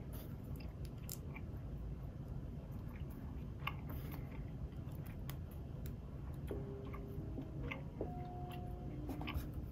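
Plastic building bricks being handled and pressed together, giving scattered sharp clicks and small rattles. In the last third, short soft pitched notes come in alongside the clicks.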